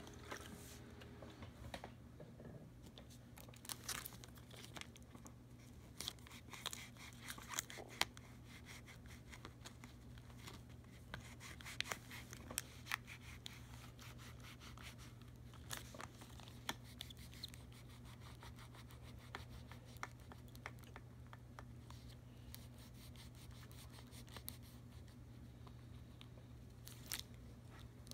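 Thin plastic smart film crinkling and crackling as it is handled and wiped with a cloth, in faint scattered ticks and rustles over a low steady hum.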